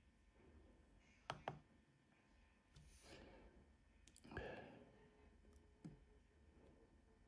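Very quiet; two quick computer-keyboard key clicks a little over a second in, then two soft rushes of breath-like noise around three and four seconds in.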